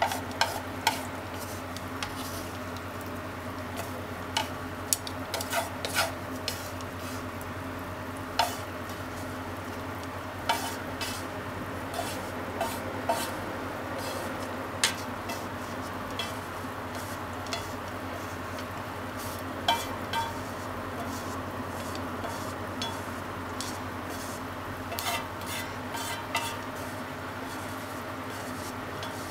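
Chopsticks scraping and clicking against a frying pan as stir-fried food is pushed out onto a plate: irregular sharp clicks over a steady low hum.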